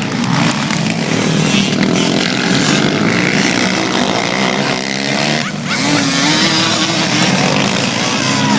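Engines of racing ATVs running together, their pitch rising and falling as the riders accelerate and back off.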